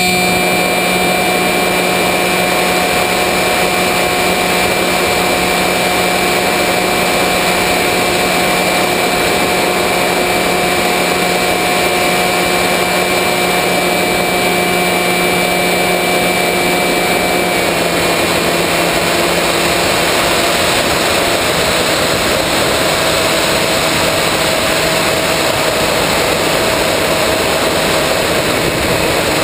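Battery-powered RC plane's electric motor and propeller heard from on board, a steady whine over heavy wind rush; the pitch steps down slightly a little over halfway through as the throttle is eased.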